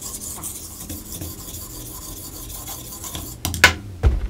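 Kitchen knife blade drawn over the wet 1000-grit side of a combination water stone, a steady soft rasping with little pressure: the fine honing stage that takes off the burr. Near the end, a few sharp knocks and a low thump.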